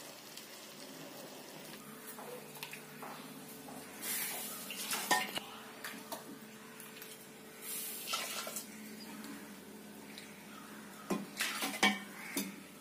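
Kitchen utensils clinking and scraping against a clay pot of just-boiled herbal coffee, with soft stirring sounds. The clinks come in a few short, scattered bursts over a quiet background, the busiest near the end.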